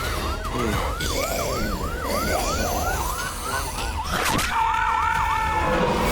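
Emergency vehicle siren in a fast yelp, rising and falling about three times a second over a low rumble. About four seconds in, a quick rising whoosh cuts across it, and a steady tone then sounds with the siren until shortly before the end.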